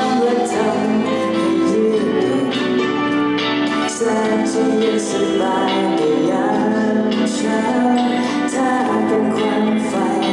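A singer performing a song live with band accompaniment, a melodic vocal line over sustained chords.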